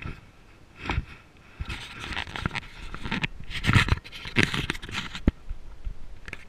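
Handling noise on a body-worn camera: irregular rustling and scraping with a few knocks as the housing rubs and bumps while the wearer moves, loudest a little after the middle.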